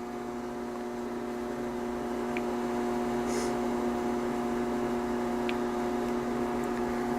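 A steady hum of a few held pitches that slowly grows a little louder, with a couple of faint clicks.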